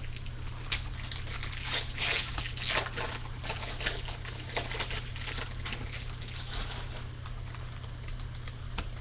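Foil wrapper of a 2015 Bowman Baseball hobby pack being torn open and crinkled by hand. The crackling is loudest about two seconds in and dies down after about seven seconds.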